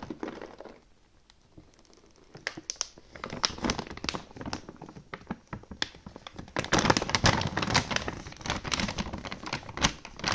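Plastic bag of dry dog food crinkling and crackling as it is handled and turned over: quiet for the first couple of seconds, louder from about six seconds in.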